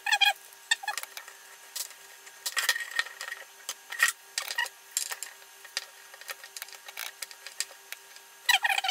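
Handling noises of plastic tubing, small hose clamps and pliers on a plywood board: scattered clicks, taps and rubbing, with a denser run of rubbing and clicks near the end as the tubing is worked onto its fittings.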